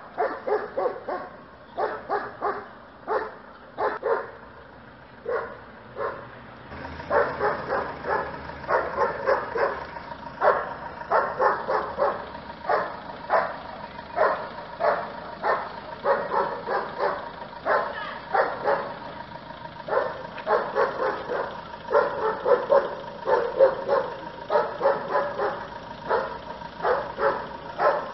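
Dog barking repeatedly at a brown bear. The barks come about one a second at first, then from about seven seconds in they come in quick runs of several barks at a time.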